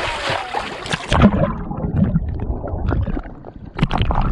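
Water splashing and churning right at the camera as a person's leg plunges into a cold spring pool. After about a second the sound turns muffled and rumbly, with knocks and gurgling, as the camera goes under the surface.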